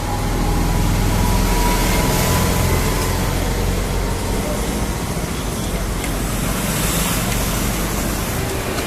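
Radio-controlled 4WD crawler driving, its electric motor and drivetrain running with a steady rumbling noise. A faint whine is heard in the first couple of seconds.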